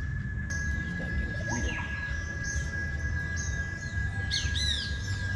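Birds calling: short chirps about once a second over a steady high whine, with a quick run of curved chirps a little past four seconds.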